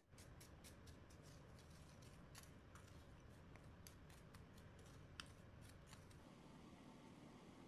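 Small wooden spoon mixing coarse salt and ground pepper in a small ceramic bowl: faint scraping with scattered light clicks of the spoon against the bowl, which stop about six seconds in.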